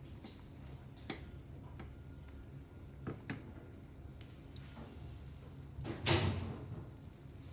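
Light household handling sounds over a low steady hum: a few small clicks and knocks, then a louder, rougher knock with a short rustle about six seconds in.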